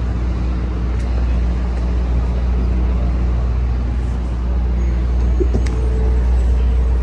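Steady low rumble of city traffic and machinery hum.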